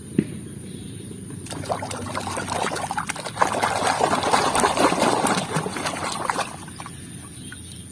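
Water pouring and splashing over a plastic toy animal as it is rinsed clean. The splashing builds from about a second and a half in and tails off near the end.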